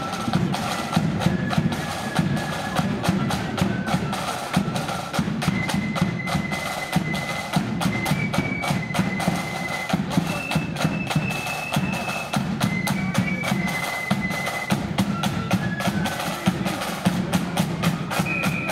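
Marching flute band in the blood-and-thunder style playing a march: a high flute melody of held notes over rapid, dense side-drum strokes and bass-drum beats.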